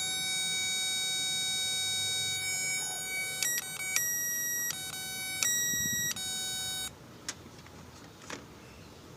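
Electronic beeping: one long steady beep of about three and a half seconds, then a string of shorter beeps that switch back and forth between a lower and a higher pitch, stopping about seven seconds in. A couple of faint clicks follow.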